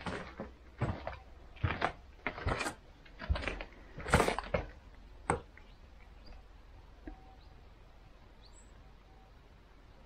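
A series of irregular knocks and thuds, about one a second, that stop about five seconds in, followed by quiet outdoor background with a few faint high chirps.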